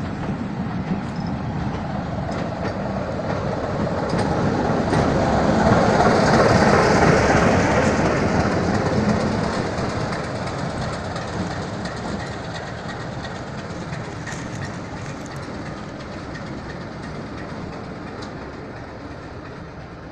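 Heritage passenger train departing: coaches rolling past with wheels clicking over the rail joints, swelling to its loudest about a third of the way in as the diesel locomotive at the rear goes by, then fading steadily as the train draws away.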